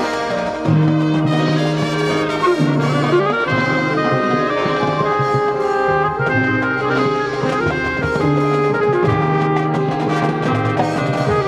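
High school marching band playing: brass on held chords over a low bass line that steps to a new note every second or two, with percussion underneath.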